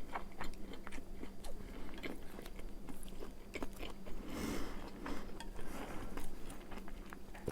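Chewing and mouth sounds of a person eating, a continuous run of small soft clicks.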